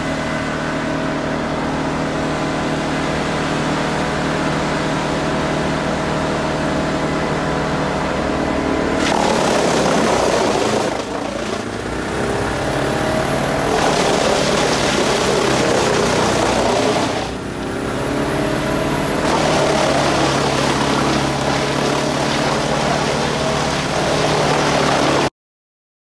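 Scania V8 engine driving an ERJO 9/93 drum wood chipper, running steadily, then from about nine seconds in logs being fed in and chipped: a loud, dense grinding that dips briefly twice between loads. The sound cuts off suddenly near the end.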